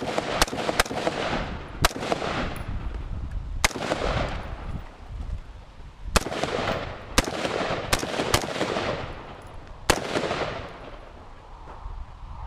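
About ten AR-15 rifle shots fired at an uneven pace: three in quick succession at the start, then single shots and quick pairs, the last about ten seconds in. Each crack rings out with a fading echo.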